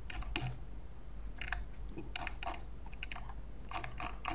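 Computer keyboard keys clicking irregularly, about fifteen light clicks, bunched closer together in places, over a faint steady low hum.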